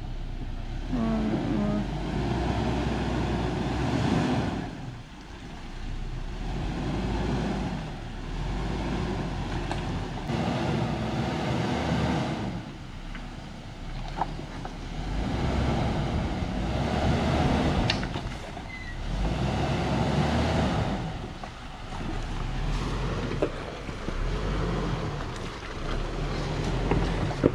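Hummer H3 SUV crawling over a rocky creek bed, its engine swelling and easing every few seconds, with a few sharp clicks.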